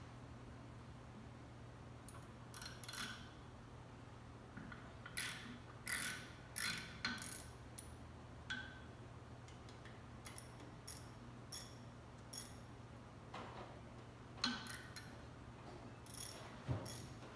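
Hand tools working on engine parts: scattered metallic clicks and clinks, some in short quick runs like a ratchet wrench being worked, over a steady low hum.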